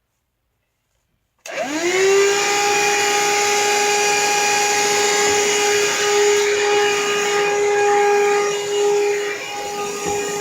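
Vacuum cleaner switched on about a second and a half in: the motor winds up with a quickly rising whine, then runs steadily with a strong whine over a rushing of air.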